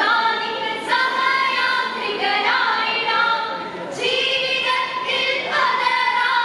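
A group of girls singing together into microphones, in long held notes with a new phrase starting about every second and a half.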